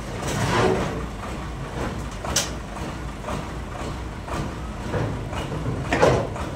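Scattered knocks and scraping thuds as a large trembesi log is shoved and levered across a steel truck bed, over a steady low engine hum. A sharp knock comes about two seconds in and the loudest thud near the end.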